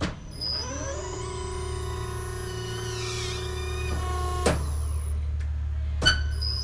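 Hydraulic test-bench power pack cycling a landing gear actuator. A steady low hum carries whining electric tones that step and shift in pitch. Sharp clicks of the bench switching come at the start, about four and a half seconds in and near the end, and after the first click the pump winds up in pitch.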